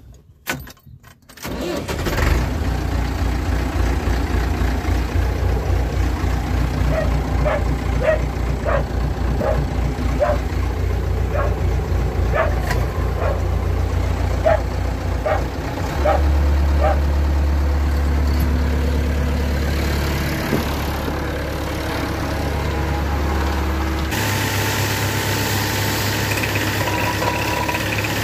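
Massey Ferguson 265 tractor's diesel engine starting about a second and a half in, then running steadily, with a light regular ticking about twice a second in the middle. It steps up louder about sixteen seconds in. Near the end the sound changes to an engine drone with the hiss of a pressure-washer jet.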